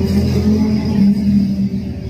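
Background music with a steady low rumble underneath.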